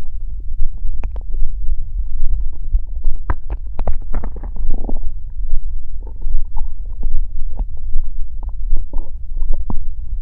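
A human stomach growling and gurgling over a constant deep rumble, with many short irregular pops and bubbles. A longer gurgle comes about four seconds in.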